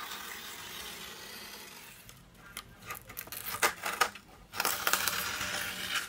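A knife slicing along gummed paper tape to free a stretched watercolour painting from its board, with the stiff paper rustling as it is lifted. A steady scrape fades over the first couple of seconds, followed by irregular rustles and small knocks, louder near the end.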